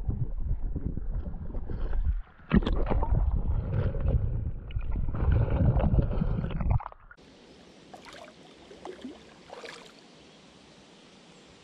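Muffled rushing and knocking of moving water heard through a submerged action camera, loud and uneven. About seven seconds in it cuts to a much quieter open-air river hiss with a few faint splashes.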